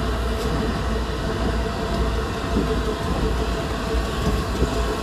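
The Flying Scotsman, an LNER A3 Pacific steam locomotive, rolling slowly tender-first past at close range as it reverses: a steady rumble of the moving engine with no exhaust beat.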